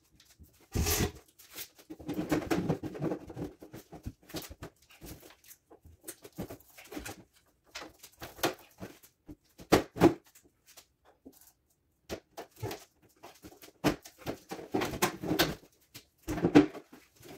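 Microwave being lifted and fitted by hand onto a wall mounting plate: irregular knocks, bumps and scrapes of its metal case against the plate and wall, with grunts and heavy breathing from the effort of lifting it alone.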